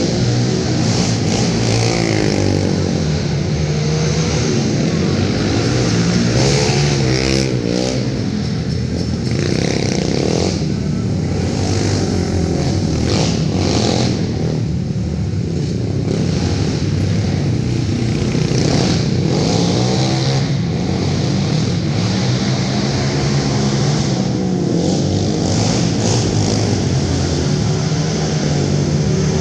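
Racing quad engines revving hard and backing off as they race around a dirt track, the pitch rising and falling over and over.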